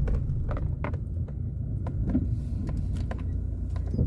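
Car driving, heard from inside the cabin: a steady low engine and road rumble, with scattered light clicks and rattles.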